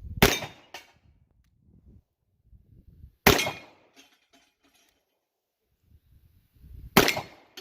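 Three gunshots from a Taurus Judge revolver, spaced about three and a half seconds apart.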